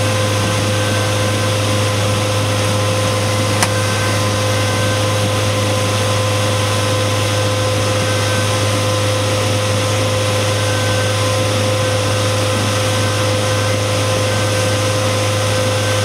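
Boat's outboard motor running steadily at speed, a constant drone mixed with the rushing water of the wake. A single short click about three and a half seconds in.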